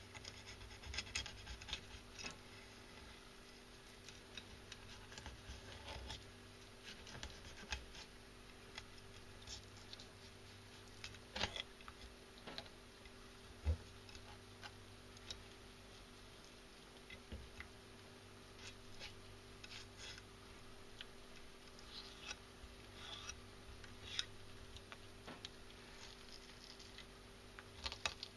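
Knife paring the rib bones from a horse mackerel fillet: faint, irregular clicks and short scrapes of the blade against the bones, over a steady low hum.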